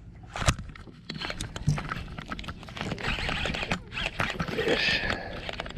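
Abu Garcia Black Max baitcasting reel being cranked to retrieve a cast lure, with rapid small clicks and scratchy handling noise. A single sharp click stands out about half a second in.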